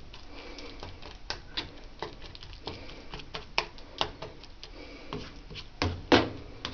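A cooking utensil scraping and tapping against a nonstick skillet as an egg mixture is stirred and pushed around: irregular clicks and scrapes, with a couple of louder knocks near the end.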